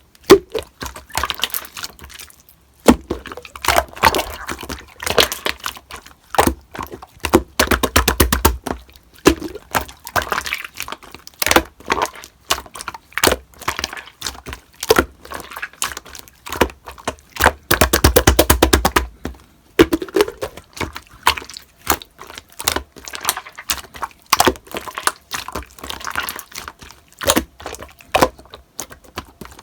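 Slime being pressed, poked and stretched by hand, giving dense runs of sharp clicks and crackling pops with brief pauses in between.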